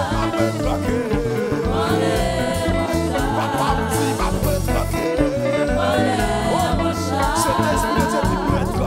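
Gospel praise-and-worship music: a singer with a wavering, vibrato voice over a band with bass and a steady beat.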